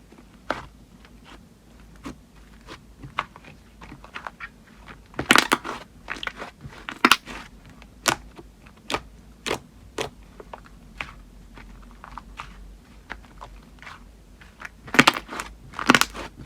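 Slime being squeezed and worked by hand, giving off a series of sharp clicks and pops, with two louder flurries about five seconds in and near the end.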